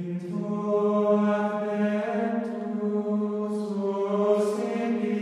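Background music: a choir holding long, sustained chords, the notes shifting slightly about two seconds in and again near the end.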